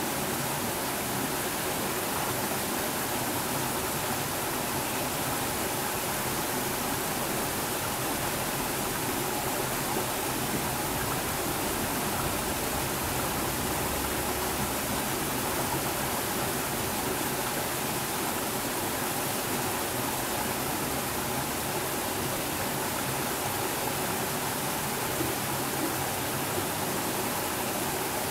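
Small mountain stream flowing steadily over a low rocky cascade into a pool, a constant babbling rush of water.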